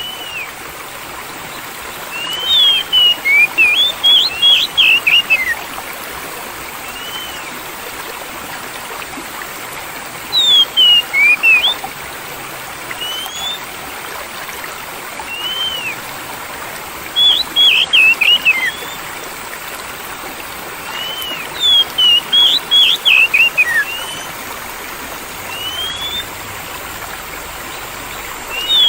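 A songbird singing clear whistled phrases, a quick run of notes roughly every six seconds with single slurred whistles between, over the steady rush of flowing water.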